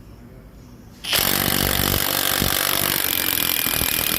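High-torque impact wrench hammering continuously through a 19 mm impact swivel socket on a bolt clamped in a vise, starting about a second in. It is driving the bolt toward failure, and the bolt's thread ends up stripped.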